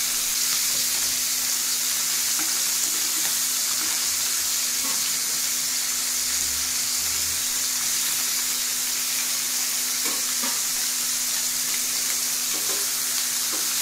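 Small whole fish sizzling steadily in hot oil in a frying pan, with a few faint taps of a metal spatula as more fish are laid in.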